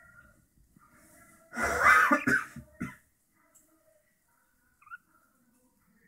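Pet budgerigars' soft warbling chatter, broken about a second and a half in by a loud rough burst lasting over a second, with one short rising chirp near the end.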